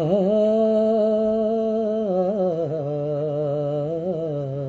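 A man singing a long wordless note, unaccompanied. He holds one pitch for about two seconds, then steps down lower and holds again, with a slight waver in the voice.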